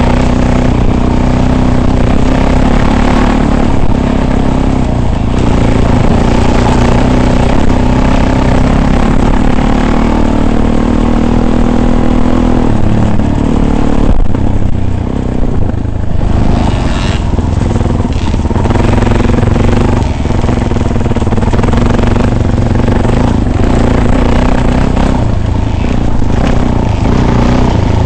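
Vehicle engine running steadily while driving off-road, its pitch holding level with a brief dip about halfway through.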